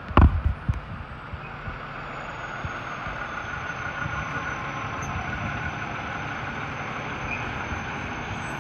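Fire engine's diesel engine running as the truck rolls slowly past, with a thin high whine that drops slightly in pitch and then holds steady. A loud thump comes right at the start.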